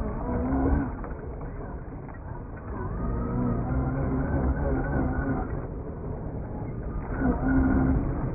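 Traxxas X-Maxx electric RC monster truck's brushless motor whining in spells as the throttle is worked, rising and falling in pitch, over the rumble of its big tyres churning and spraying loose dirt.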